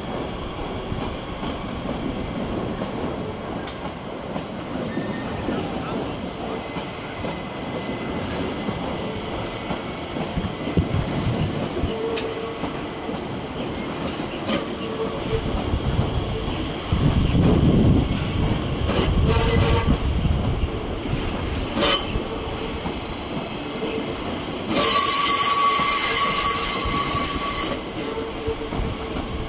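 DB Regio Talent 2 electric multiple unit rolling past on the tracks: a steady rumble of wheels on rail, with clicks over the joints and a louder rumble about seventeen seconds in. Near the end comes a loud high-pitched squeal lasting about three seconds.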